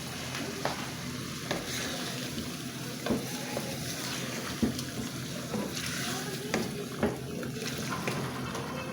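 Chicken sizzling steadily in hot oil and yogurt in a pan, with a few light clicks of a utensil stirring against the pan.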